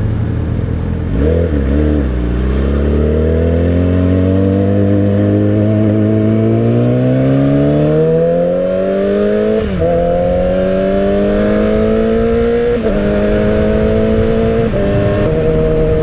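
Yamaha R6's inline-four engine pulling hard, its pitch climbing steadily for several seconds, then upshifting with short drops in pitch about 10, 13 and 15 seconds in.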